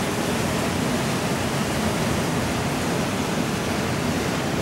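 Waterfall rushing steadily: a constant, even wash of falling water with no breaks.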